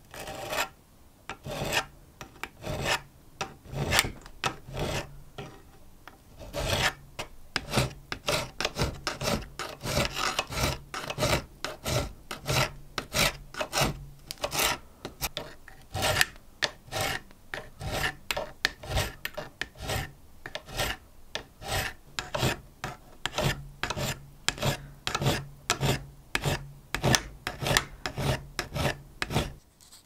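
Flat hand file rasping back and forth across the rusted top plate of an antique lighter, one scrape per stroke. The strokes are irregular for the first seven seconds or so, then settle into a steady rhythm of about two a second.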